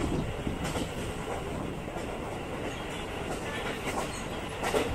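Furano-Biei Norokko train heard from on board at speed: a steady running noise of wheels on rails, with a couple of sharper knocks from the track.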